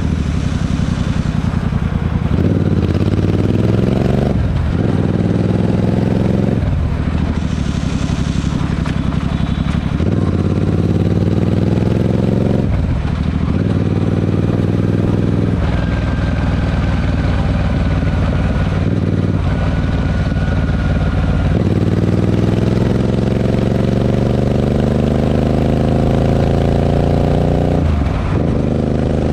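Royal Enfield 650 parallel-twin motorcycle engine through a Barrel Atom aftermarket exhaust, revving up again and again. Each time the pitch climbs over a few seconds and then drops back sharply.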